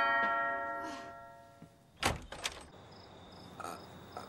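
A two-tone doorbell chime rings out and fades over the first second and a half. About two seconds in come two sharp clicks half a second apart as the front door's latch is worked and the door opens. Faint, evenly repeated cricket chirps follow through the open door.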